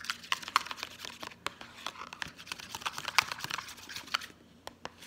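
Plastic knife stirring and scraping thick soap-and-salt slime in a plastic bowl: a quick run of crackly scrapes, clicks and squelches that thins to a few scattered clicks about four seconds in.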